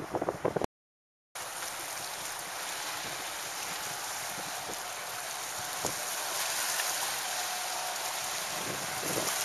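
Wind gusts buffet the microphone, then cut off to silence for about half a second. A steady rushing hiss of wind and water follows, and the gusts return near the end.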